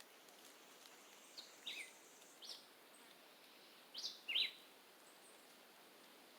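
Birds chirping: a handful of short, downward-sliding chirps spaced irregularly, the loudest a pair about four seconds in, over a faint steady hiss.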